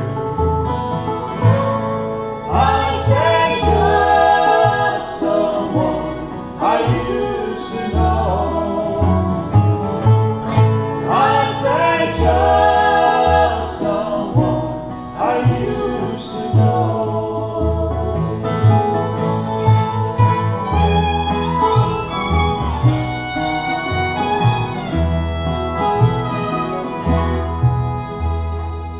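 Acoustic country band playing the closing instrumental bars of a song: fiddle, acoustic guitars, a resonator guitar and a pulsing upright bass line. The music dies away near the end.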